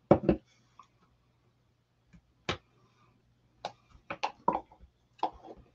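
Clicks and knocks of a plastic stir stick and ink tins and jars being handled on a tabletop, a pair near the start, a single knock midway and a quick cluster near the end, over a faint steady hum.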